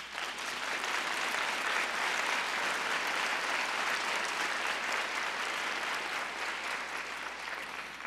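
Audience applauding, rising within the first second, holding steady, then dying away near the end.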